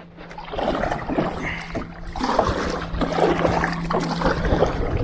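Kayak paddle strokes through the water, with splashing and dripping coming in waves as the kayak is paddled along.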